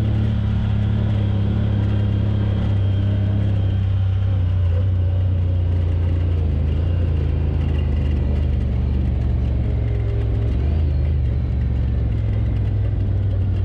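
Side-by-side UTV's engine running steadily under way over sand, a constant low drone.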